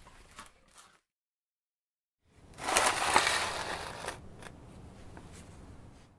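Granules of kanuma, a soft, porous volcanic rock used as potting grit, stirred by hand in a bowl. The grains crunch and rattle for about two seconds, starting about two seconds in, followed by a few faint clicks.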